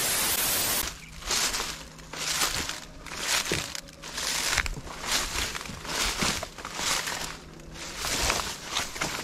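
A short burst of TV-static hiss, then footsteps wading through dense leafy ground cover, the leaves brushing and rustling with each stride at about one step a second.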